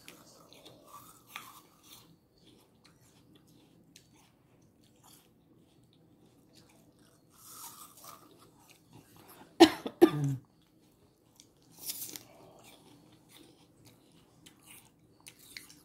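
Toddler biting into and chewing a piece of raw apple, with soft crunches at intervals. One short loud vocal sound, like a cough, comes about ten seconds in.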